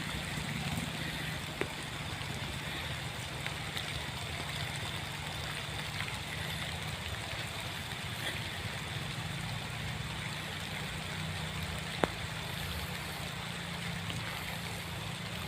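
An engine running steadily at a low, even pitch over a constant hiss, with a sharp click about twelve seconds in.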